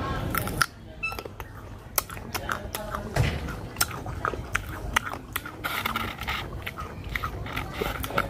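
Close-up biting and chewing of crisp fresh ambarella fruit: irregular wet crunches and crackles as the firm flesh breaks between the teeth.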